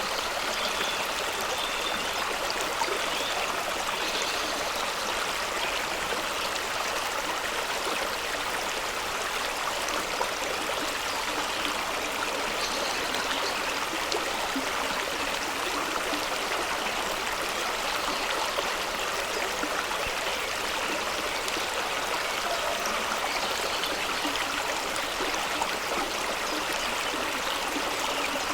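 Fast-running stream of water rushing and gurgling over rocks, a steady rush with small splashes.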